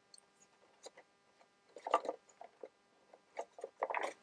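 Paper pieces being handled on a tabletop: faint rustling and light taps in short bursts, most about two seconds in and near the end.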